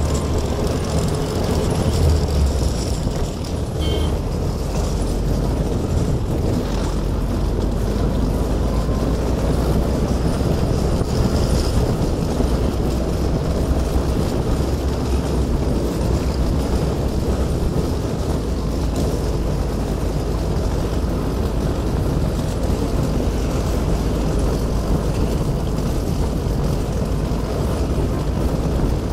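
NSU Kettenkrad HK101 half-track motorcycle driving off-road, its Opel Olympia 1.5-litre four-cylinder engine running steadily along with the rattle of its tracks, heard from on board.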